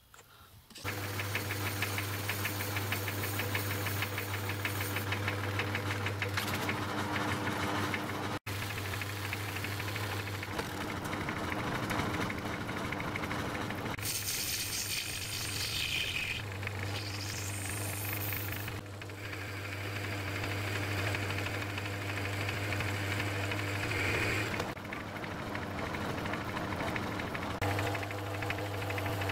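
Metalworking lathe running, its motor giving a steady hum while a cutting tool turns down a metal shaft, with noisy cutting sound over it. A thin rising whine sounds around the middle. The sound drops out abruptly once and shifts level a few times.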